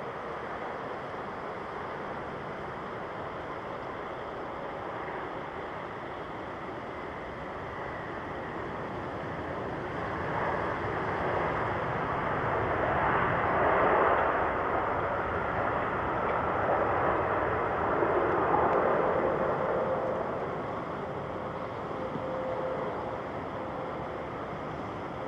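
Jet noise from a Boeing 787-9 Dreamliner airliner passing: a rushing engine sound swells, peaks about midway, and fades away again over the runway background.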